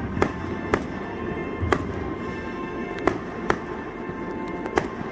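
Aerial fireworks bursting in the sky: about half a dozen sharp bangs at irregular intervals, some close together.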